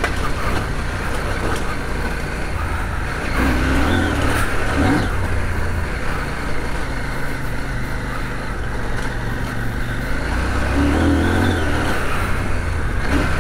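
CF Moto 800MT Touring's parallel-twin engine running under way on a rough gravel track, over a steady rush of riding noise. The engine sound grows louder about three seconds in and again near the end.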